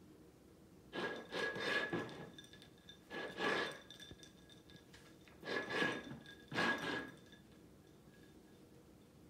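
A cat pawing at the water in a ceramic bowl holding ice, in four bursts of splashing and clinking, with the bowl ringing at each burst.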